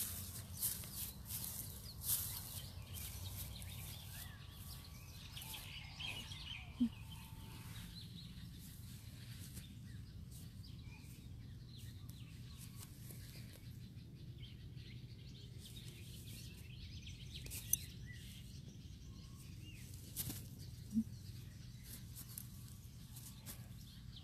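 Quiet ambience: a steady low hum, with scattered clicks and rustles in the first few seconds and a few faint bird chirps.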